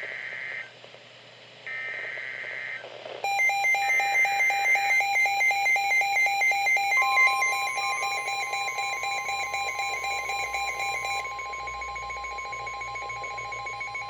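NOAA Weather Radio Emergency Alert System signals: three short warbling bursts of SAME header data, each about a second long. A receiver's pulsing alert beep joins about three seconds in. About seven seconds in, the steady 1050 Hz warning alarm tone begins and holds, marking an incoming severe thunderstorm warning.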